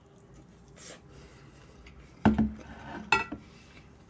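Tableware clatter during a meal: light handling noise, then two sharp knocks of utensils or a dish against the table or bowl, the louder about two seconds in and a smaller one about a second later.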